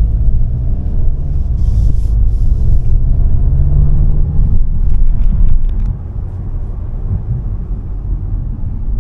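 Low rumble of engine and tyres inside the cabin of a moving VW Golf 8 GTI. It is louder for the first several seconds and eases to a quieter level about six seconds in.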